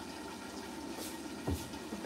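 Steady, low rushing of water, with one dull thump about a second and a half in.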